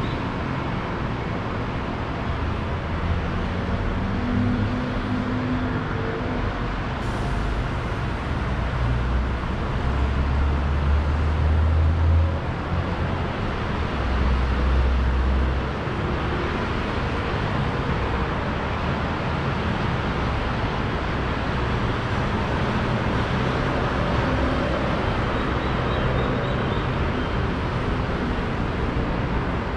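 Steady city street traffic noise with passing cars and engines, and a deep low rumble swelling twice in the middle.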